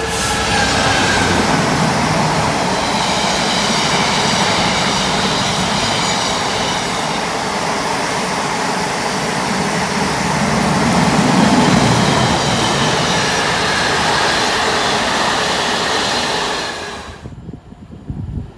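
A Class 66 diesel locomotive passing through at the head of a container freight train, followed by the steady rumble and rush of the container wagons running over the rails. The sound cuts off suddenly about a second before the end.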